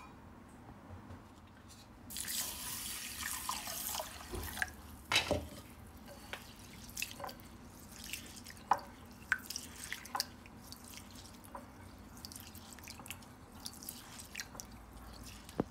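Water poured into a glass bowl of raw rice and moong dal about two seconds in, then a hand swishing and rubbing the grains in the water to wash them, with small irregular splashes and drips.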